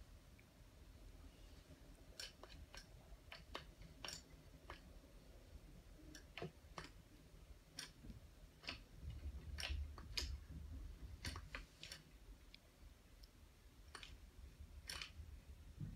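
Faint, irregular light clicks and taps as hands handle yarn and the metal parts of a circular sock machine, with a soft low rumble of handling about nine to eleven seconds in.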